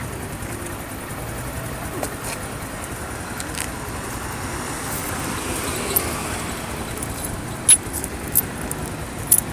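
Street traffic noise as a steady hiss, with a few sharp clicks near the end.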